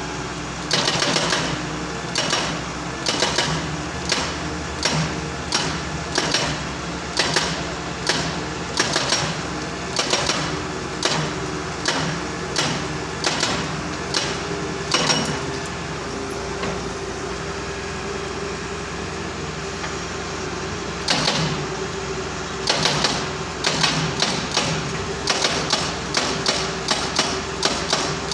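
Excavator-mounted hydraulic breaker hammering on a pile to crack it: a steady train of sharp metallic blows over the excavator's running engine. The blows stop for about five seconds midway, leaving only the engine's steady drone, then start again and come faster near the end.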